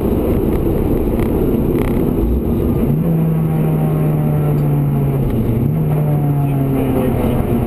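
Inside the cabin of a 2003 Honda Integra Type R, its four-cylinder engine runs over heavy road noise. A steady engine note comes in about three seconds in and shifts slightly after about five seconds.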